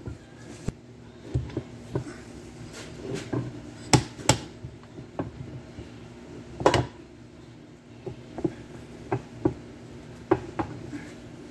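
Irregular metal knocks and clicks as the Tremec TR3550 transmission's aluminium case and tail housing are handled and fitted together on a workbench: about a dozen sharp knocks, the loudest about four and seven seconds in, over a faint steady hum.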